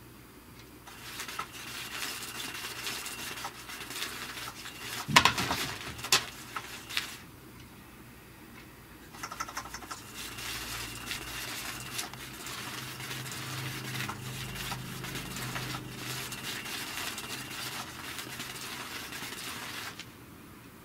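Battery-powered Catch Me If You Can 2 cat toy running: its motor hums while the spinning wand scrapes and rustles under the fabric cover. It runs in two spells with a pause about seven seconds in, and stops suddenly near the end. A few sharp knocks come about five to seven seconds in.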